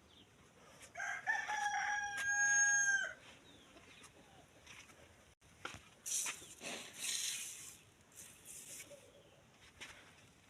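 A rooster crowing once, about a second in, a single held call of about two seconds that rises at the start and drops off at the end. A few seconds later comes brief rustling.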